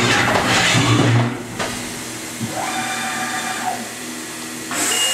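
Haas HS-1RP horizontal machining center in its tapping cycle: coolant spray hissing over a low motor hum, cutting off about a second and a half in. A short motor whine then rises and falls, and near the end a new hiss starts with a steady high whine.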